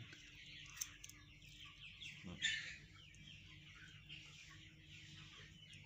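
Faint chirping of chickens: many short, falling peeps overlapping, with one louder call about two and a half seconds in.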